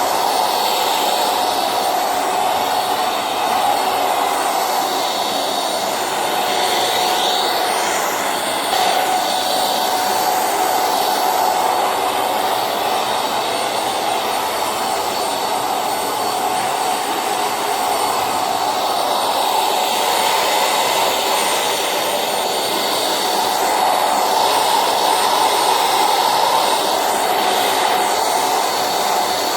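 Silvercrest anti-dust-mite handheld vacuum cleaner running steadily while being worked over a mattress. Its motor noise has a steady whine and swells and eases a little as it moves.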